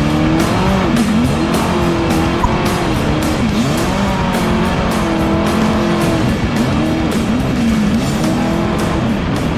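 Trophy truck engine revving up and down again and again, its pitch rising and falling every second or so, with music playing over it.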